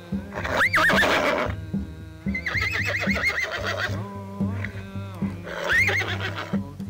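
Horse whinnying three times, the middle call long and quavering, over background music with a steady beat.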